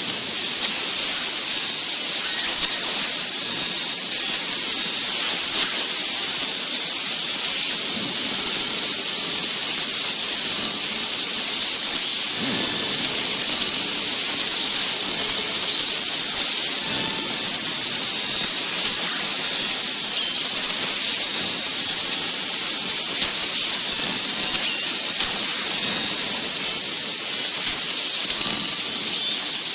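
Analog TV static: a steady, high-pitched hiss with almost no bass.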